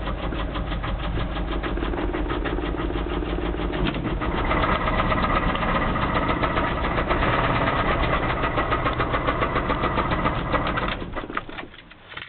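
1989 Dodge truck's 318 V8 engine running with a loud, fast, even knock, the sign of a worn high-mileage engine. It gets louder about four seconds in and dies away about a second before the end.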